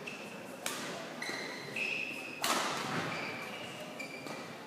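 Badminton in a sports hall: a few sharp racket-on-shuttlecock hits, the loudest about two and a half seconds in, ringing in the hall. Between them come short high squeaks of court shoes on the court mat.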